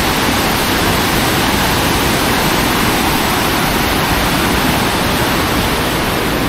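Floodwater rushing through the sluice gates of a large concrete river weir and churning over the baffle blocks of its spillway. It is a loud, steady rush of water.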